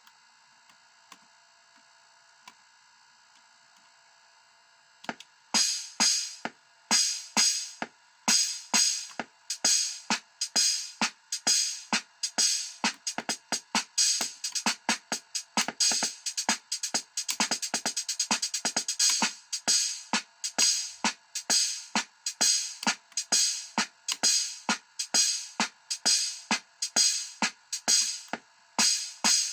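Casio Casiotone MT-100 keyboard's built-in drum rhythm playing a steady electronic beat of sharp, hiss-like hits, about two a second, starting about five seconds in after a faint electronic hum.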